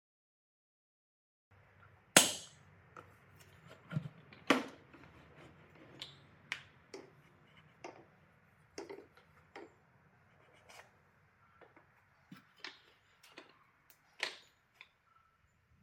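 Hard plastic knocks and clicks from handling a Shop-Vac QSP Deluxe wet/dry vacuum as its lid latches are worked and the motor head with its filter is lifted off the drum. The sharp knocks come at irregular intervals, the loudest about two seconds in.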